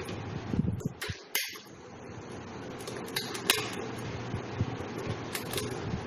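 Handling of a plastic puzzle-sheet ball lamp: several sharp clicks and rustles, roughly in pairs, as the interlocking sheets are pressed and adjusted by hand, over a steady background hum.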